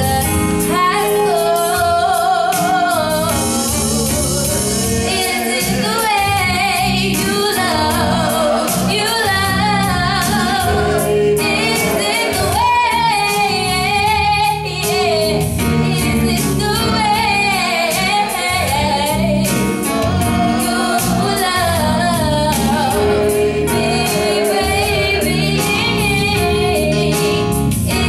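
A woman singing a neo-soul song into a microphone, live and amplified, over a keyboard accompaniment with a held chord and a steady beat.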